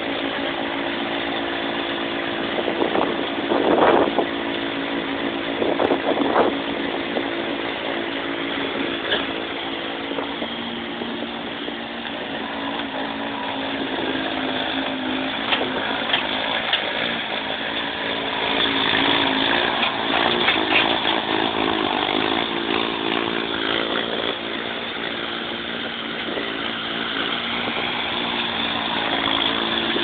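Small skid-steer loader's engine running steadily as the machine drives, turns and lifts its bucket, with a couple of brief louder surges a few seconds in and a louder, busier stretch past the middle.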